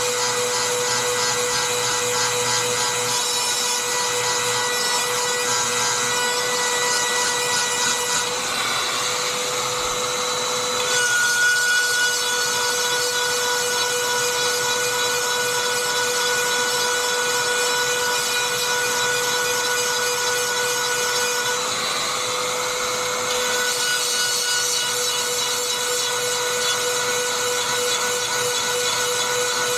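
Dremel rotary tool running steadily with a high whine, grinding the cutters of a chainsaw chain to sharpen them. Its tone shifts a little a few times as the grinding stone works the tooth.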